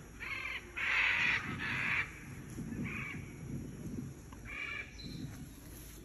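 Macaws calling: about five loud squawks, the strongest two coming about one to two seconds in and a last one near five seconds.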